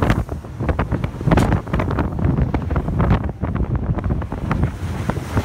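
Wind buffeting the microphone of an action camera aboard a rigid inflatable speedboat running fast on the river, in irregular gusts over the rush of water and spray.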